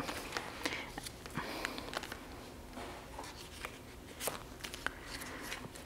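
Faint, irregular small clicks and paper rustling from stickers being handled, peeled and pressed onto a paper planner page.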